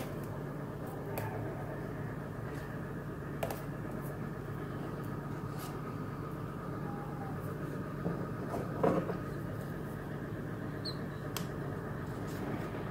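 Faint, scattered snips and rustles of rosemary branches being cut and pulled away, over a steady background hum.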